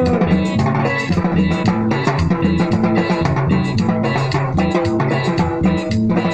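Live band music from two electronic keyboards, playing a bass line and melody, over a steady rhythm on a pair of drums.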